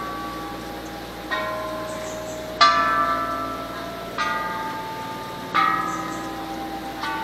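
A row of hanging metal temple bells struck one after another, five strikes about every second and a half. Each bell rings on at its own pitch and slowly dies away; the second strike is the loudest.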